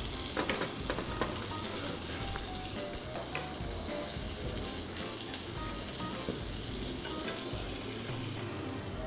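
Steady sizzle of hot oil frying in a pan, with a few light clicks in the first second or so.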